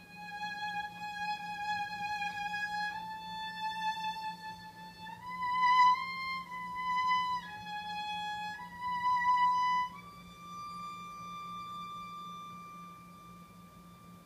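Background music: a slow melody of long held, high notes on a bowed string instrument, each held one to three seconds, the last one softer and fading out near the end.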